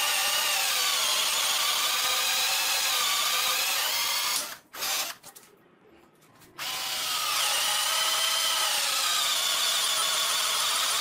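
Wesco 12V cordless drill-driver with a four-pole brushed motor, boring a 1-inch hole in wood with a three-spur bit. Its motor pitch sags and recovers as it labours under the heavy load without stalling. About four and a half seconds in the drill stops for roughly two seconds, then starts again and keeps boring.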